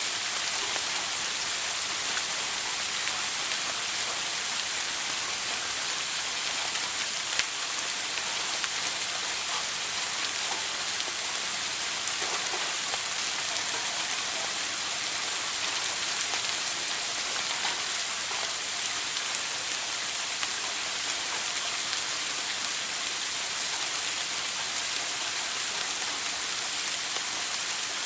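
Steady hiss of a running shower, the water spraying and splashing down, with faint scattered drips.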